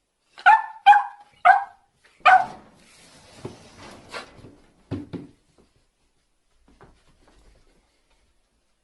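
Crow cawing four times in quick succession, harsh and loud, followed by fainter rustling and a couple of soft thuds.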